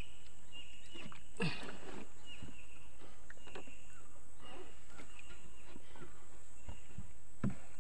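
Short high chirping calls from wildlife, repeating about once a second, over a steady low hum, with a few faint knocks.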